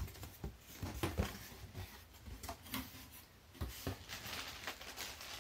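Cardboard shipping box being opened by hand: scattered light knocks, scrapes and rustles as the lid and flaps are pulled back.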